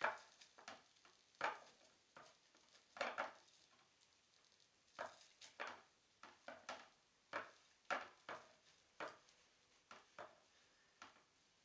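Faint, irregular clicks and light scrapes of chopsticks against a plate as a grilled dried mackerel is picked apart, with a short pause about four seconds in.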